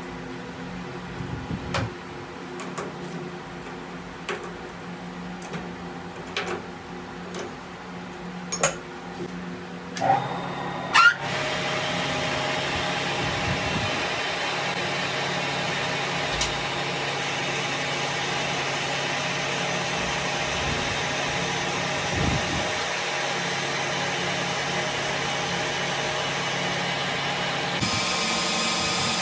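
Scattered light clicks and knocks over a steady hum, then about ten seconds in the lathe's motor starts with a quick rising whine and runs steadily, its tone shifting slightly near the end.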